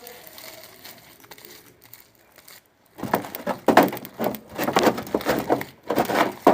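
Homemade slime full of styrofoam beads being kneaded and squeezed by hand, crackling and squishing. Faint for the first three seconds, then a run of loud crackly squeezes.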